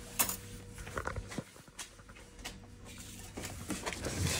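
Things being handled and rummaged through boxes: scattered light clicks and knocks, then a denser rustling clatter from about three and a half seconds in. A faint steady hum runs under the first second.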